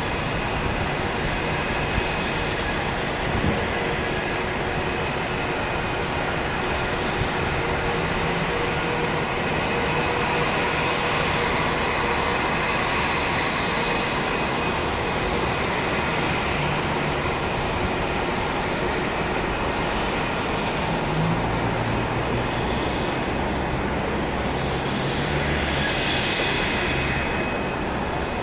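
Steady jet noise of a Boeing 757-200 on final approach, a continuous rumble and whine with faint constant tones, its higher whine growing a little near the end as the airliner nears touchdown.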